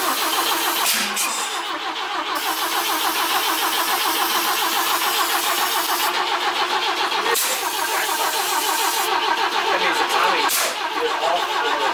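The starter cranks a BMW E21's four-cylinder engine steadily and rhythmically, on a first start attempt after it has sat for about 15 years. A hiss of starting fluid sprayed into the intake runs alongside, stopping twice.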